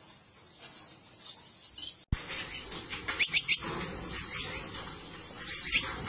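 Gouldian finches chirping: faint calls at first, then after a brief dropout about two seconds in, louder high, quick chirps, with a short run of them about three seconds in and another near the end.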